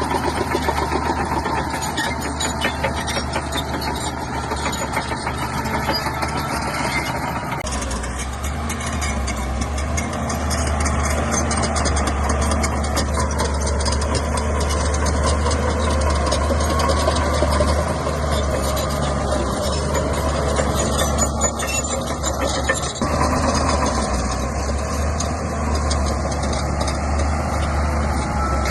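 Bulldozer's diesel engine running steadily under work, its low rumble growing heavier about 8 seconds in and shifting again a little after 23 seconds.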